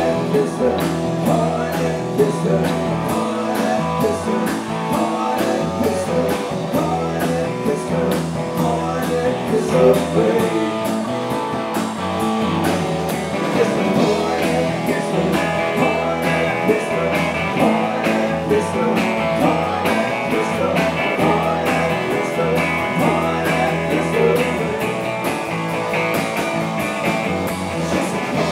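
Live rock band playing through an amplified PA: electric guitar and electric bass with vocals.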